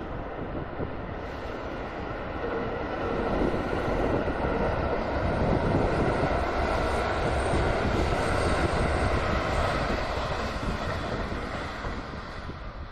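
JR West 213 series electric train crossing a steel truss bridge: a steady rumble of wheels on rails and bridge girders. It grows louder a few seconds in, peaks in the middle and fades as the train passes.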